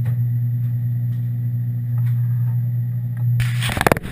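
A steady low machine hum. Near the end comes a loud burst of rapid knocks and rustling as the camera is jostled.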